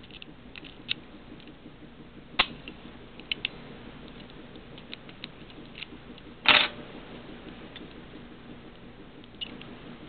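Small metallic clicks and ticks of lock picks working in a brass wafer padlock as it is handled, with a sharp click about two and a half seconds in and a louder clack about six and a half seconds in.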